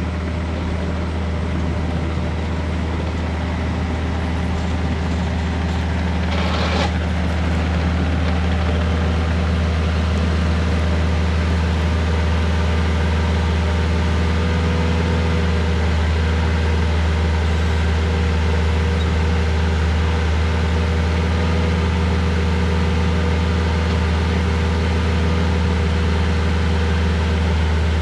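Kubota excavator's diesel engine running steadily, with a strong low hum, as the machine works to move a log. There is a short rushing sound about seven seconds in, after which the engine gets a little louder.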